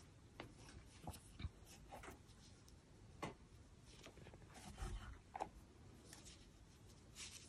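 Faint, scattered rustles and light ticks of yarn and a crochet hook being worked by hand, over near silence.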